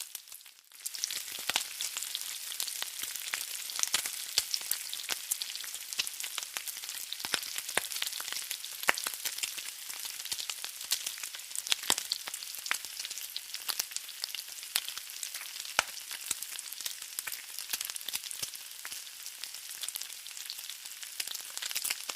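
Frying sizzle: a steady high hiss of hot oil with dense, irregular crackling pops, dipping briefly just after the start.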